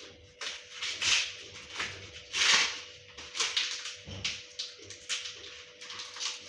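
Fresh maize cob being stripped by hand: the husk leaves and silk rustle and tear in quick, irregular pulls, one or two a second.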